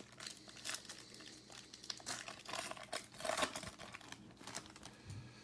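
Foil wrapper of a Topps Chrome baseball card pack being torn open and crinkled by hand: a dense run of crackles and rustles that dies away about four and a half seconds in.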